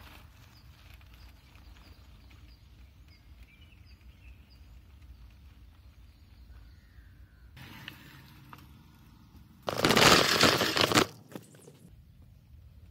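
Quiet forest ambience with a small bird repeating a short high chirp about twice a second for the first few seconds. About ten seconds in comes a loud burst of rushing, rustling noise lasting about a second and a half, then faint ambience again.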